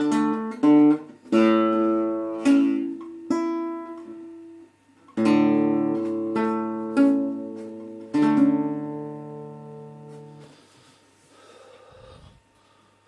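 Nylon-string classical guitar playing the closing chords of a song: a series of strummed chords, the last one left to ring and die away about ten seconds in. A faint rustle follows near the end.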